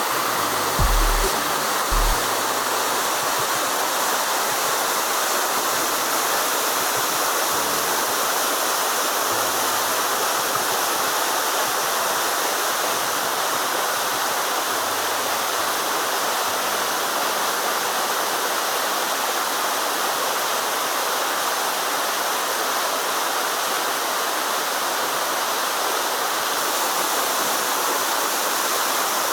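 Waterfall pouring steadily, an even rush of falling water. A few short low thumps come about one and two seconds in.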